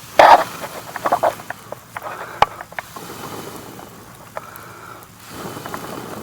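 Sticks and embers of a small campfire being pushed back together by hand: a loud scrape of wood at the start, a few sharp cracks about a second in and another near two and a half seconds, then a softer steady rush in the second half.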